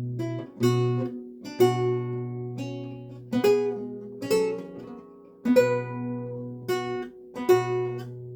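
Renaissance lute being played: plucked notes and chords struck about once a second, each ringing and dying away, over a sustained low bass note.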